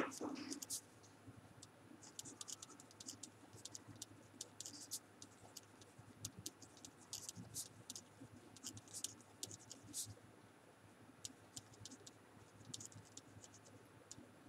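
Faint scratching of a pen writing on paper: many short, quick strokes as words are handwritten, with one louder knock at the very start.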